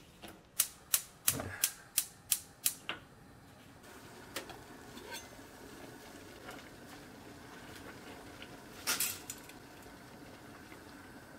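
Gas hob's electric igniter clicking seven times, about three a second, as a burner is lit. A steady low hiss follows. About nine seconds in there is a short clatter as dry spaghetti goes into the pot.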